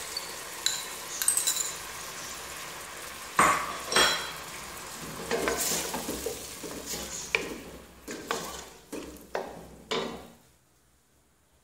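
Chopped tomatoes and ginger-garlic paste sizzling in hot ghee in a stainless steel pot, then two loud metallic knocks against the pot followed by a run of stirring strokes with a wooden spatula, about two a second and fading. The sound stops about a second before the end.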